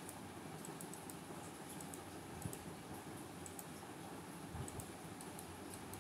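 Faint, scattered clicks of a computer mouse, a dozen or so spread unevenly, over steady low background hiss.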